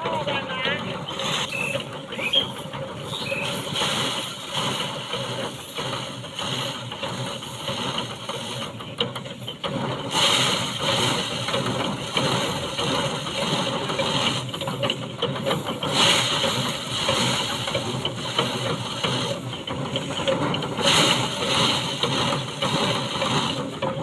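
Rice drum thresher running with a steady mechanical clatter as sheaves of rice are held against its spinning drum to strip the grain. The noise grows brighter and louder about ten seconds in.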